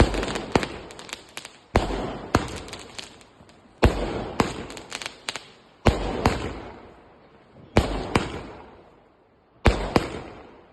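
Multi-shot firecracker cake firing nonstop: a sharp bang about every two seconds, each followed by a few quick cracks and a fading crackle.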